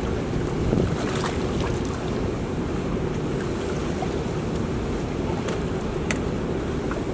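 Steady rush of water pouring through a dam spillway, with wind rumbling on the microphone. A couple of short sharp clicks come through, one about a second in and one near the end.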